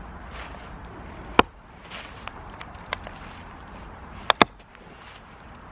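Spalling tool striking the edge of a hand-held stone to knock off flakes and freshen sharp edges for striking sparks: several sharp clicks. The loudest comes about a second and a half in, and a close pair follows about four seconds in.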